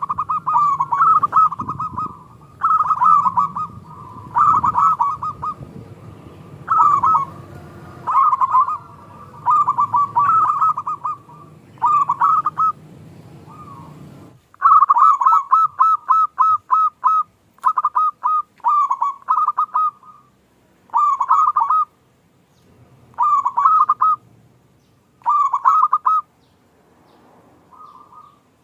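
Zebra dove (perkutut) cooing: short phrases of quick staccato coo notes, repeated about every two seconds. A low background rumble underneath stops about halfway through.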